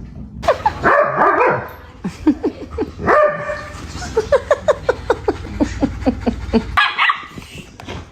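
A dog barking: a few loud barks early on, then a quick run of short, high barks about four a second, and one last bark near the end.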